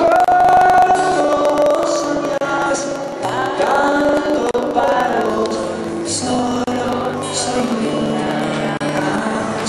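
Live male vocalist singing a slow ballad over acoustic guitar, with long held notes that bend in pitch.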